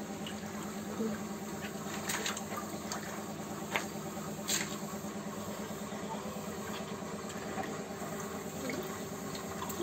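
Shallow stream water trickling and lapping faintly, with a few small clicks or splashes from hands working in the water, over a steady low hum.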